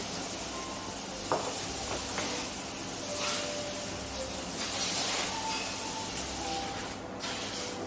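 A steady hiss, with one sharp click about a second in.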